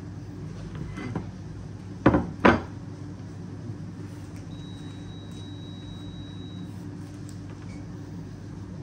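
A plate set down onto a wooden tabletop: two quick knocks about half a second apart, a couple of seconds in, over a steady low hum.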